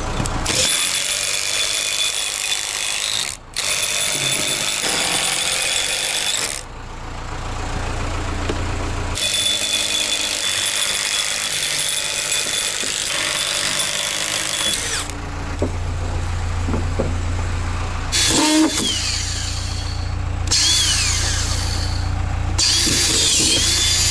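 Milwaukee cordless impact driver hammering long lag screws with washers up into OSB-faced roof panels, in several runs of a few seconds each with short pauses between. Near the end the motor whines down each time the trigger is let go.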